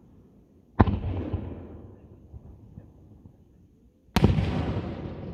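Two aerial firework shells bursting about three and a half seconds apart. Each is a sharp boom followed by a long rumble that slowly dies away.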